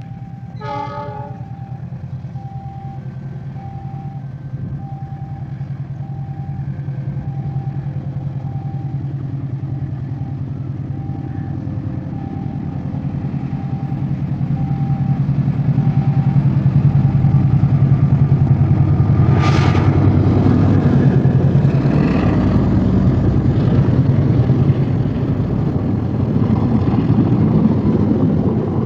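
Level-crossing warning alarm ringing in two alternating tones as a CC206 diesel-electric locomotive approaches. The engine's low rumble grows steadily louder and is loudest as the train passes, with a brief sharp burst partway through.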